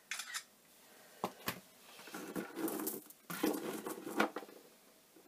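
Beaded necklace clicking and rustling as it is handled and arranged on a fabric-covered jewellery display bust: a few sharp clicks early on, then stretches of rustling with clusters of small clicks.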